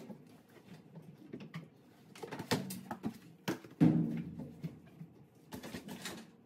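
Scattered knocks, thumps and rustles of loading a top-load washing machine: a plastic laundry hamper tipped and handled, clothes dropped in, and the washer's controls and a detergent tub worked. The loudest thump comes a little before the four-second mark.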